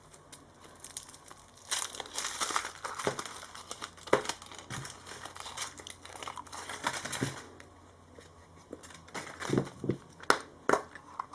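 Wrapper crinkling and tearing as a Yowie chocolate and its toy capsule are unwrapped by hand, followed near the end by a few sharp clicks and taps of the small plastic parts being handled.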